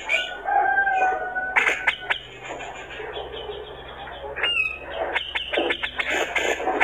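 Male grey-cheeked bulbul (cucak jenggot) singing vigorously: two held whistles near the start, then sharp clicks, a falling note, and a fast harsh chatter toward the end.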